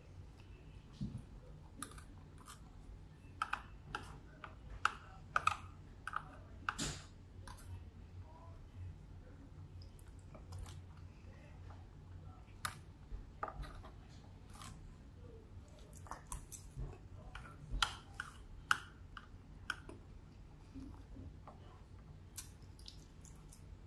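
Eating sounds: a plastic fork clicking and scraping against a plate and mouth noises from chewing rice and beans, in scattered small clicks that come in clusters, over a faint low hum.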